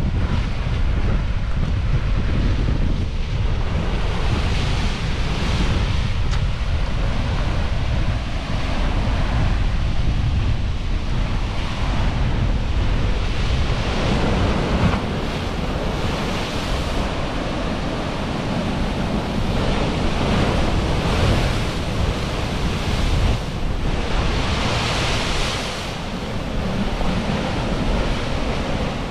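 Sea waves surging into a narrow limestone rock inlet and breaking in foam, a continuous wash whose hiss swells with each surge, about three times. Heavy wind buffets the microphone throughout, adding a low rumble.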